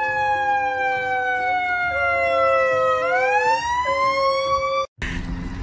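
Emergency-vehicle siren wailing, its pitch falling slowly and then rising again about three seconds in, with a second, steadier tone beneath it. It cuts off suddenly near the end.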